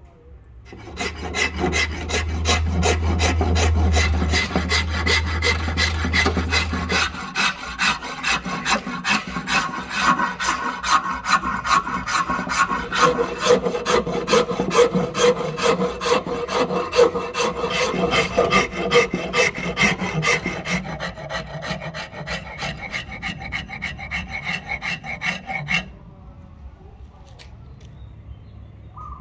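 Flat steel file scraping in quick, even strokes across a black-and-white ebony blank clamped in a vise, stopping about 26 seconds in. A low hum sits under the first several seconds.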